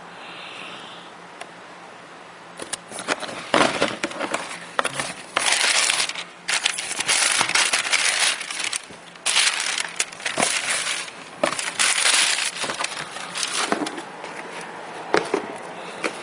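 Tissue paper rustling and crinkling in a cardboard shoebox as a sneaker is pulled out of its wrapping. The rustling comes in several loud stretches of a second or two each, with a few sharp handling knocks, and thins out to occasional clicks near the end.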